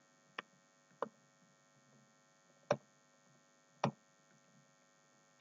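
Four sparse, separate clicks of computer keyboard keys being typed, over a faint steady electrical hum.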